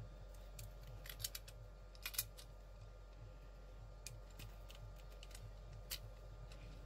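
Light clicks and taps of a plastic fuel filter cover from a Mercruiser Cool Fuel Module being handled while its new O-ring is fitted: a small cluster about a second in, the loudest clicks about two seconds in, then single clicks near four and six seconds in, over a faint steady hum.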